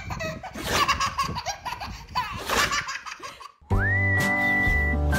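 A baby laughing in repeated belly laughs. About three and a half seconds in it cuts off, and music starts: a high, held melody note over a steady, pulsing bass.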